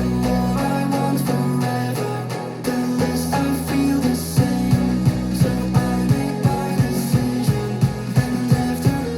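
Guitar-led rock music played through a Logitech R-20 2.1 desktop speaker system with subwoofer, for a sound test; a steady beat of about two strikes a second comes in about halfway.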